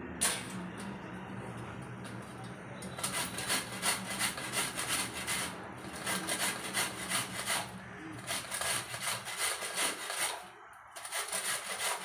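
Whole amla (Indian gooseberries) rubbed over the coarse side of a stainless steel box grater: quick, regular rasping strokes that start about three seconds in, break off briefly near the end, then carry on.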